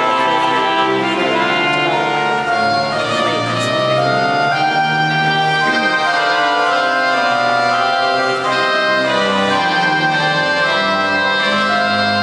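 Large church pipe organ playing loudly, many notes sounding together in held chords that change about once a second.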